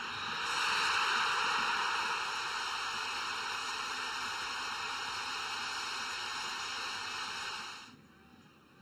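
Stadium crowd cheering a goal, a steady roar that swells about a second in and cuts off suddenly near the end.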